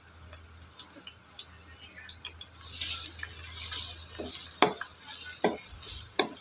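Sliced lemongrass, ginger, garlic and shallots sizzling in hot oil in a non-stick wok, with scattered small pops. The sizzle grows louder about three seconds in, and a few sharp knocks come in the second half. The aromatics are being fried until fragrant.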